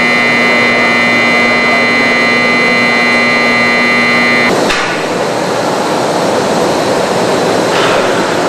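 Steady loud industrial machinery noise with a constant high whine and a lower hum, which cuts off abruptly a little over halfway through, leaving a steady rushing noise.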